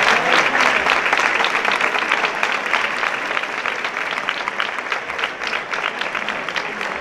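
A large crowd applauding, loud and dense at first, then slowly thinning and fading.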